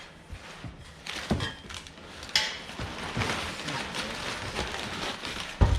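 Packing material rustling and crinkling as stainless exhaust parts are handled, with a few sharp knocks of the parts being set down or bumped; the loudest knock comes near the end.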